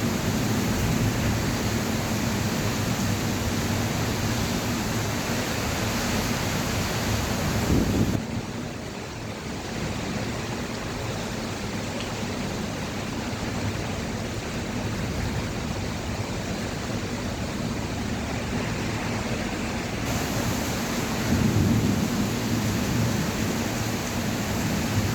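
Heavy rain falling in a steady hiss, with a low rumble underneath. About eight seconds in the sound drops suddenly and turns quieter and duller, then comes back just as suddenly some twelve seconds later.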